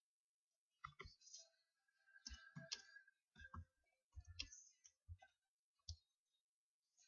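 Computer keyboard typing: faint keystroke clicks in short bursts with pauses between them.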